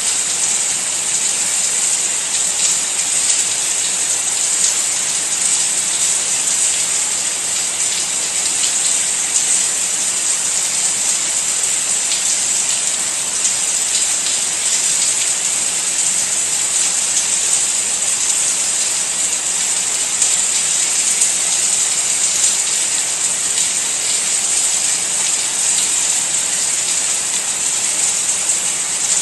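Rain falling steadily: an even, bright hiss with the faint ticks of single drops.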